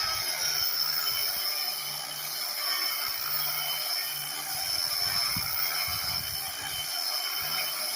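Angle grinder running with a steady high whine and hissing grind, stripping bark from a log. A lower hum comes and goes as the load on it changes.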